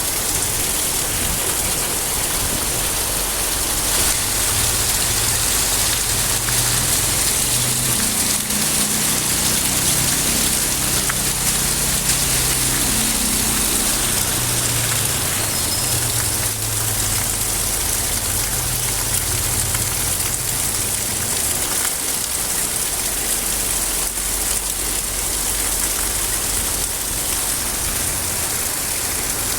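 Steady heavy rain falling, an even hiss. A low rumble rises and fades through the first half.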